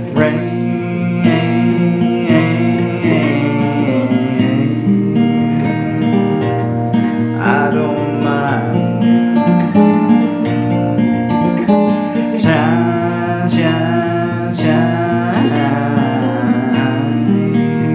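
Acoustic guitar strummed in a steady rhythm, chords ringing.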